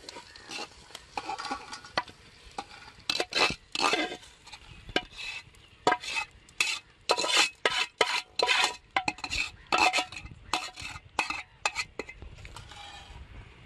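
Perforated metal skimmer spoon scraping fried dried red chillies, shallots and tomato out of an aluminium pot onto a steel plate: a rapid, uneven run of metal-on-metal scrapes and clinks, busiest and loudest through the middle.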